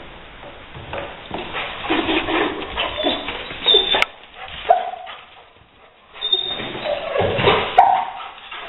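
Rottweiler barking and whining in excited bursts while chasing a gray squirrel, amid scuffling and knocks, with a short lull about two-thirds of the way in.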